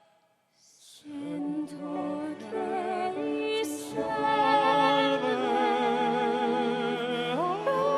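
Brief near silence, then classical-style singing with vibrato resumes about a second in. Near the end a voice slides up into a long held note.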